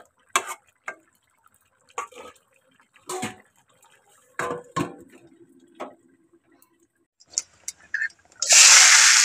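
A few separate knocks of a spatula and a steel lid against a metal kadai. About eight seconds in, hot oil starts sizzling loudly and steadily as chopped onion goes in with whole cumin.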